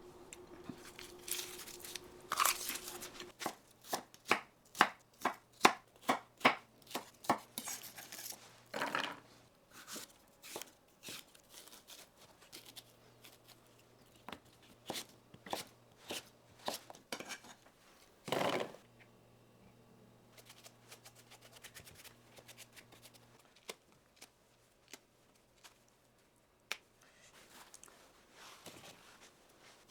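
Kitchen knife chopping on a cutting board: a run of even strokes about three or four a second, thinning to slower, scattered cuts in the second half, with a few longer, noisier sounds between them.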